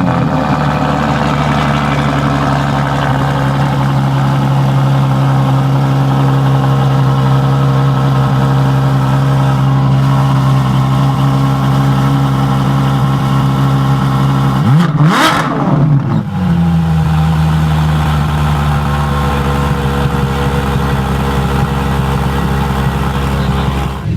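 Car engine idling steadily, then blipped once into a quick rev about 15 seconds in, and settling back to a slightly lower idle.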